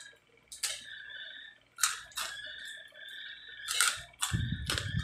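Sharp crunches and crackles of crispy roast pork skin being torn apart by hand and chewed close to the microphone, about six in all, with low thumps and rumble of handling near the mic toward the end.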